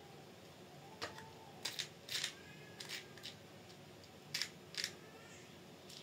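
A run of short, sharp clicks and taps as small screws and hard kit parts for a scale RC chassis are picked up and handled, some in quick pairs.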